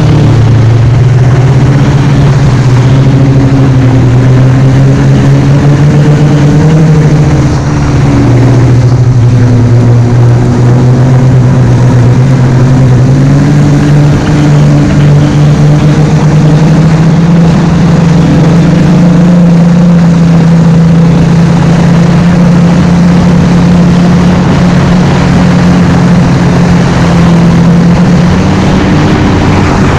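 Snowmobile engine running under way up a snow track, a loud steady drone. Its pitch shifts down and up a few times with the throttle in the first half, then holds at a higher pitch until a drop near the end.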